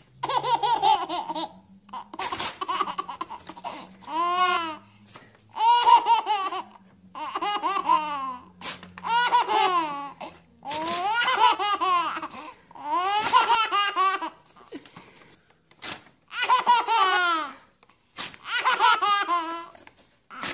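A baby laughing in about ten short fits, each set off by a sheet of paper being torn in front of her. Each rip is brief, and a burst of high, bouncing giggles follows it.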